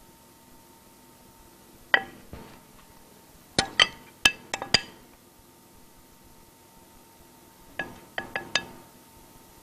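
Small metal pastry rings clinking against a plate as they are handled, in short sharp clinks: one about two seconds in, a quick run of five or six a little later, and another four near the end.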